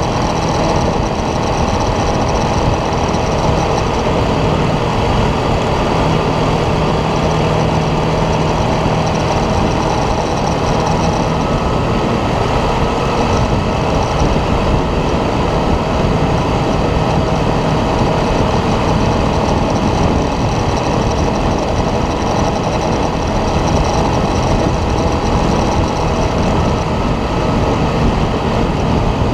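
ATV engine running steadily under way, with a dense low rumble.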